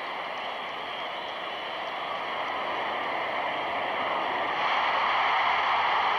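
Stadium crowd noise, a steady roar that swells about four and a half seconds in as the goal goes in.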